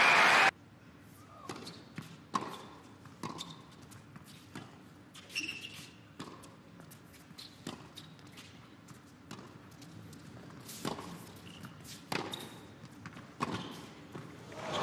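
Tennis ball bouncing and struck by racquets on an indoor hard court: a scattered series of sharp pops over a quiet crowd. Applause cuts off about half a second in and swells again near the end.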